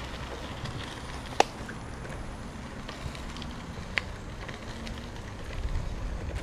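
Bicycle tyres rolling over a gravel trail, a steady noise with two sharp clicks, one about a second and a half in and one about four seconds in. The low rumble grows louder near the end.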